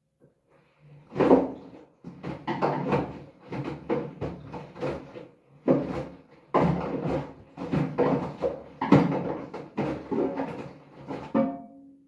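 Hoover front-loading washing machine tumbling a wet bath mat and mop: a string of irregular thuds and water swishes as the heavy load drops inside the drum, over a faint steady motor hum. It starts about a second in and cuts off at the end.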